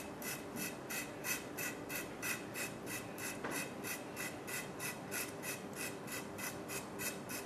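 Nail file rasping down the sides of a new leather cue tip in quick, even strokes, about four a second, as the excess leather is dressed away from the tip.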